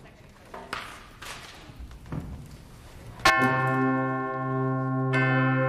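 Quiet taps and rustling from the players, then a band comes in sharply about three seconds in with a loud, sustained chord, which is re-attacked near the end.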